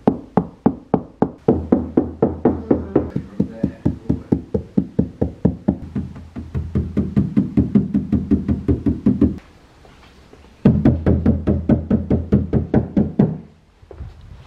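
Background music with a steady beat and a bass line. It drops out for about a second past the middle, comes back, and fades away near the end.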